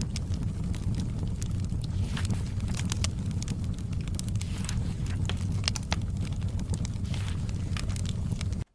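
Wood fire crackling in a fireplace: scattered sharp snaps and pops over a steady low rumble, with a few softer rushing swells. The sound drops out for a split second near the end.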